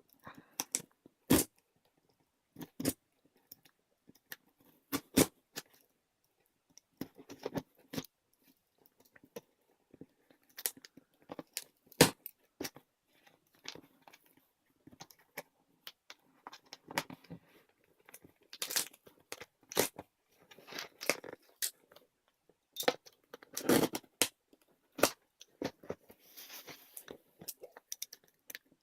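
A cardboard CPU box being opened by hand: tape and flaps pulled and torn, and the cardboard and packing crackling and crunching, with many sharp clicks and knocks at irregular intervals.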